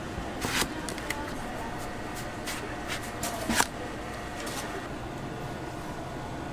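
Irregular light knocks and clicks of a fruit vendor's work, knife and containers on a cutting board, about eight in the first few seconds with the sharpest a little past the middle, over a steady background hum.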